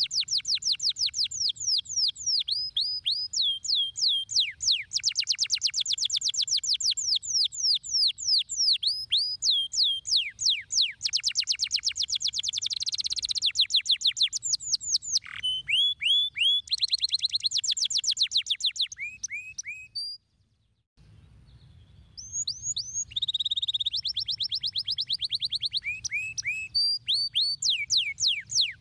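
Domestic canary singing: long rolling trills of rapid, repeated downward-sweeping notes, the speed and pitch changing from phrase to phrase. The song breaks off for about a second some twenty seconds in, then resumes.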